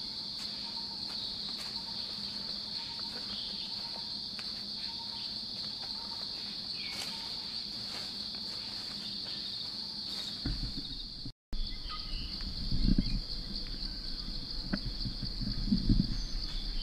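Steady high-pitched insect chorus, with a few short bird chirps over it. About two-thirds of the way in it cuts out for an instant, and irregular low thuds join in afterwards.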